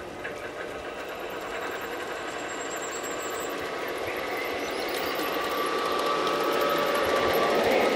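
Garden-scale model train running on its track, the wheels clicking and rattling over the rails with a faint squeal, growing steadily louder.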